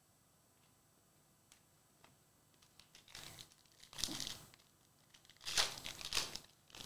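Wrapper of a Prizm Fast Break basketball card pack crinkling and being torn open by hand, in several short bursts starting about three seconds in, after a few faint ticks.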